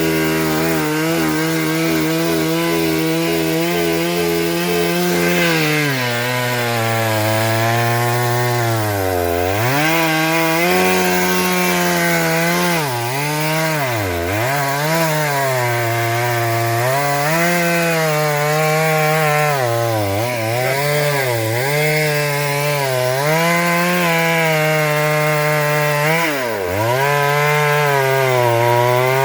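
Chainsaw cutting into the wood of a silk cotton (simal) tree. Its engine pitch repeatedly sags as the chain bites into the wood and then climbs back, with sharp dips about 9, 14 and 26 seconds in.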